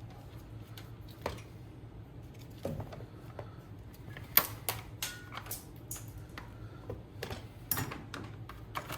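Irregular metallic clicks and taps of hand tools and engine parts being handled while a GY6 150cc engine is taken apart, coming thick and fast in the second half.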